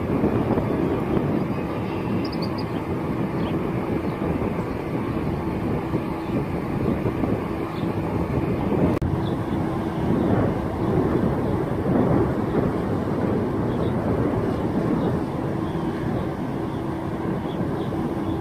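Wind buffeting the microphone in a steady, gusting low rush, with a faint steady hum underneath.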